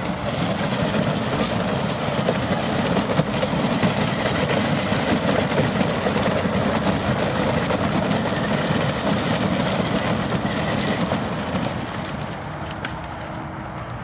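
Hard plastic wheels of a battery-powered kids' ride-on motorcycle and a towed plastic wagon rolling over gravel: a steady rolling noise that falls away about twelve seconds in as they come to a stop.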